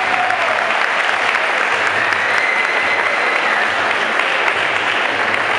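Crowd applauding steadily at the end of a round of a Muay Thai bout.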